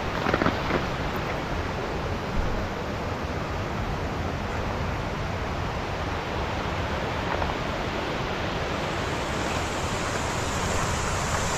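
Steady rushing of flowing water, a stream or waterfall running without letup.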